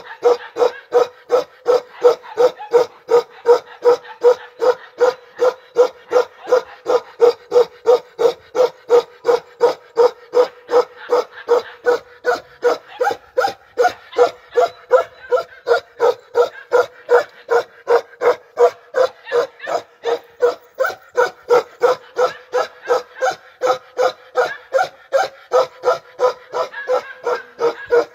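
Bakarwal dog (Kashmiri sheepdog) barking steadily in an unbroken run of short barks, about two a second, each one alike.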